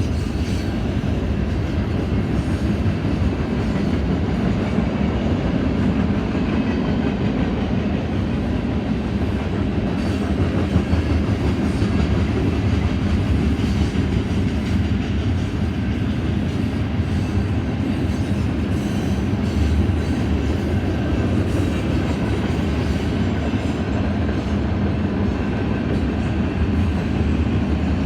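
BNSF train rolling along the track: a steady, loud rumble of wheels on rails, with faint repeated clicks of wheels passing over rail joints.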